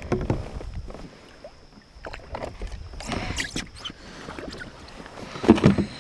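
Knocks and rattles of fishing gear being handled in a plastic kayak: a landing net moved about and a fish measuring board pulled out and laid across the deck, the loudest clatter near the end.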